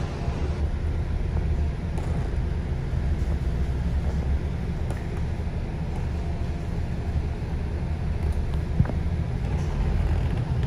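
City bus running, heard from inside the passenger cabin: a steady low engine and road rumble, with a single sharp knock about nine seconds in.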